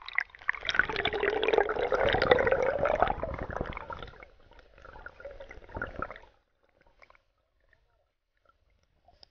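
River water splashing and gurgling around a camera as it is dunked under the surface, with bubbling; the sound dies away about six seconds in.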